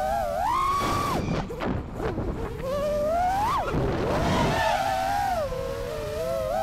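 5-inch FPV quadcopter's brushless motors and propellers whining, the pitch rising and falling with the throttle. The whine climbs sharply to a held high note about a second in and cuts off as the throttle is chopped, then climbs again to a peak past the middle before dropping back.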